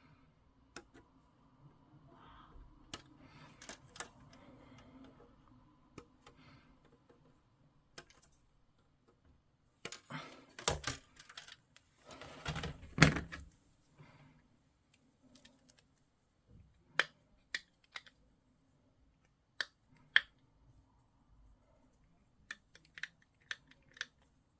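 Plastic model-kit parts being clipped from a sprue and handled on a work surface: scattered sharp clicks and snips, a busier patch of clatter about halfway through, then single crisp clicks spaced about a second apart.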